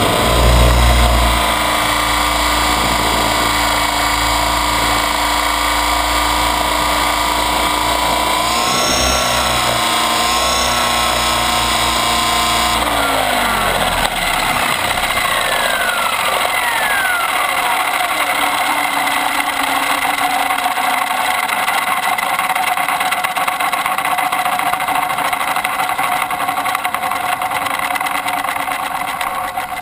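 T-Rex 550 RC helicopter's electric motor, gears and rotor whining steadily, heard from on board, with a brief louder low rumble in the first second. About 13 seconds in the pitch drops and falls as power comes off and the rotor winds down on the ground, fading at the very end.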